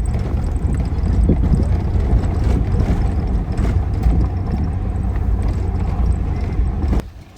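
Heavy low rumble of a vehicle driving over a rough road, with scattered knocks. It cuts off suddenly about seven seconds in.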